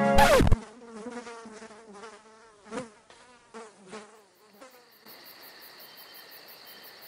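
A housefly buzzing, its pitch wavering as it flies and fading in and out, after music cuts off with a sudden loud burst. About five seconds in, the buzz gives way to crickets chirping steadily, with fast, even high pulses.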